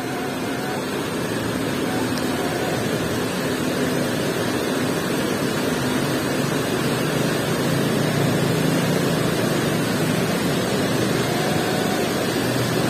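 Fast-flowing river water rushing steadily, a constant full-bodied noise that grows slowly a little louder.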